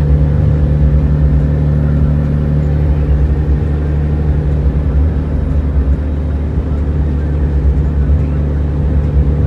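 Heavy truck engine heard from inside the cab while cruising at a steady speed: a deep, even drone that holds one pitch, over road noise.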